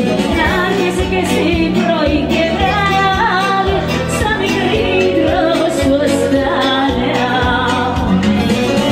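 Live amplified music: a woman sings a melody into a microphone over an electronic keyboard accompaniment with a steady rhythmic backing.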